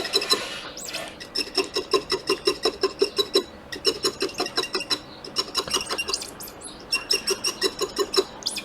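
Rapid back-and-forth scrubbing on a PS4 circuit board around the HDMI port, about seven scratchy strokes a second, pausing briefly a few times, as dry old flux is cleaned off before resoldering.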